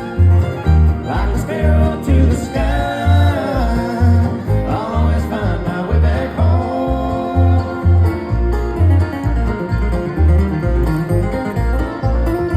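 Live bluegrass band playing: picked banjo and guitar over booming bass notes that pulse about twice a second, with a voice singing through roughly the first half.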